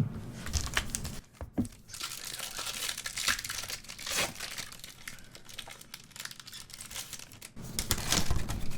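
Foil Pokémon booster pack wrapper crinkling and tearing as it is handled, in irregular crackles and small clicks.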